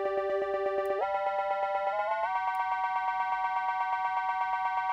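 Synthesizer note played through Ableton's Frequency Shifter effect: one held tone pulsing quickly, about ten times a second, whose pitch jumps up twice as the shift amount changes.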